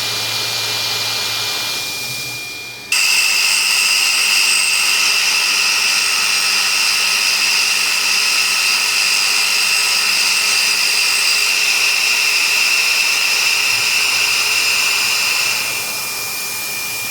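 Small CNC milling machine's spindle running with a steady high whine while milling a part. It jumps abruptly louder about three seconds in and eases back down near the end.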